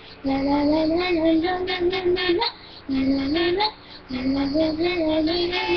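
A high singing voice holding a slow melody in long notes that step up and down, its phrases broken by short pauses.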